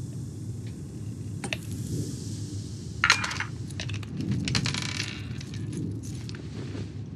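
Plastic water bottle and its screw cap being handled: light clicks, a sharp crackle about three seconds in, and a rattly patter shortly after, over a low steady rumble.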